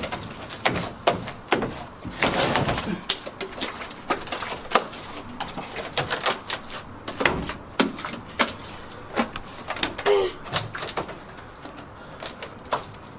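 Thick slime squelching as it is scooped by hand out of a pool and into a pot: an irregular series of wet smacks and clicks, several a second.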